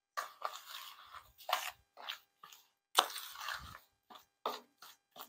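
Metal spoon stirring a thick, grainy semolina, yogurt and oil batter in a plastic bowl: a string of irregular scraping strokes.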